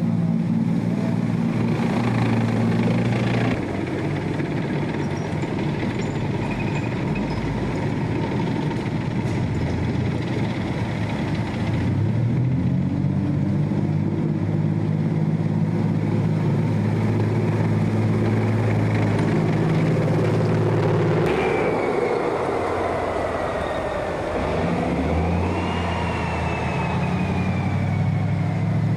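German armoured vehicles wading through a river, a Marder tracked infantry fighting vehicle and then a Boxer wheeled armoured vehicle: steady diesel engine running, with water rushing and splashing against the hulls. The sound changes abruptly several times, and in the later part a high whine falls, rises and falls again.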